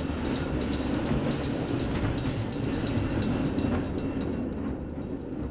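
Passenger train running past on the rails with a steady rumble and scattered clicks, fading near the end.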